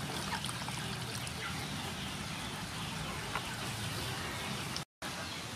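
Milk pouring in a thin stream into a hot frying pan of shrimp in spicy sauce, the sauce sizzling and crackling, then a wooden spatula stirring it. The sound drops out for a moment near the end.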